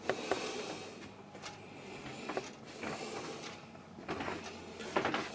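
Faint scattered clicks and light knocks over a low steady hum.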